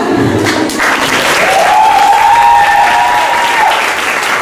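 Audience applauding steadily, with a long rising call from the crowd held for about two seconds in the middle.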